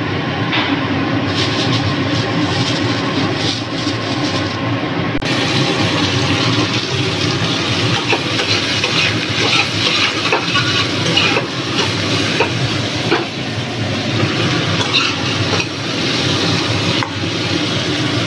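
Chopped okra frying in hot oil in a kadhai: a steady sizzle, with a spatula scraping and clattering against the pan as it is stirred. The hiss grows brighter about five seconds in.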